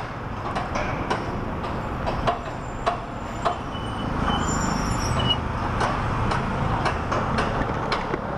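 Honda ADV150 scooter's single-cylinder engine running at low speed among street traffic, with a regular ticking about twice a second.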